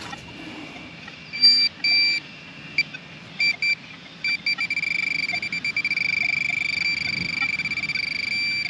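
Handheld metal-detecting pinpointer beeping: a few short high beeps, then quickening pulses about halfway through that run together into a near-continuous tone as it closes in on the buried target in the side of the hole.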